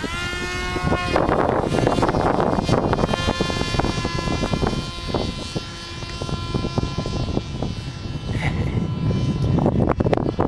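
Radio-controlled model airplane's motor and propeller whining as it flies past and climbs, a high pitched tone that rises sharply right at the start as the throttle opens, then holds fairly steady. Wind rumbles on the microphone underneath.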